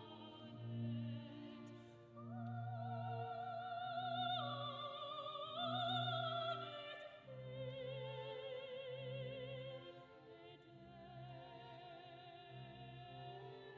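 Operatic singing: a high voice holding long notes with a wide vibrato over an orchestral accompaniment with a repeating bass line.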